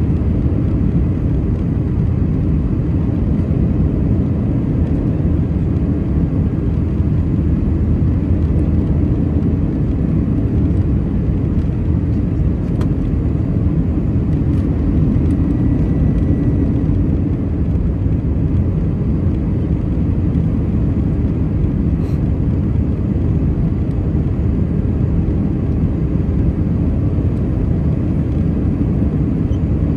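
Airbus A319 cabin noise heard from a window seat over the wing on final approach: the engines and the airflow past the fuselage make a steady, even low rush that holds the same level throughout.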